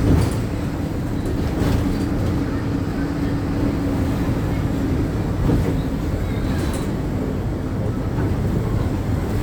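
Inside a city bus while it runs: a steady low engine and road rumble, with a faint hum through most of it and a few brief knocks and rattles.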